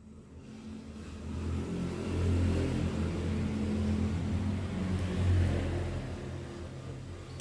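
A motor vehicle engine passing by: it grows louder over the first couple of seconds, holds for a few seconds, then fades away.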